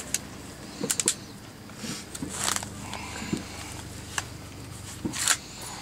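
Scattered metallic clicks and clacks, with two short scraping rustles, from hands working the parts of a French Chauchat light machine gun.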